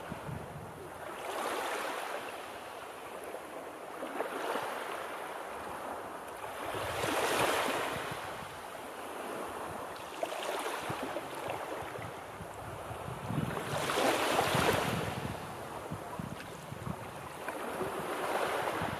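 Gentle sea surf: waves rolling in and washing ashore one after another, in about five swells that build and fade. The two largest break about a third and three quarters of the way through.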